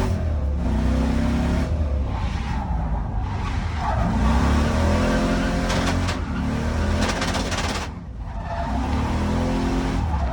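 GM 6.0 V8 in an LS-swapped BMW 335i running hard on track, its pitch climbing and dropping repeatedly as it accelerates, shifts and lifts off. A short rasping noise comes about two-thirds of the way through.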